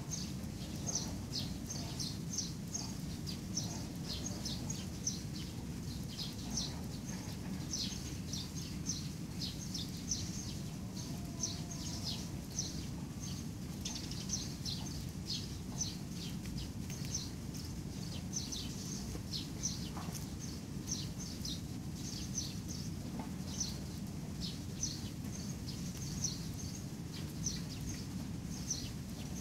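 Small birds chirping continuously: short, high notes, several a second, each sliding down in pitch, over a steady low background rumble.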